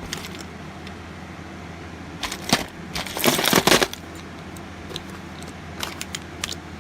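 Small plastic parts and their packaging being handled: scattered clicks and clatter, with a dense crinkling rattle lasting about a second and a half from about two seconds in, then a few lighter clicks near the end.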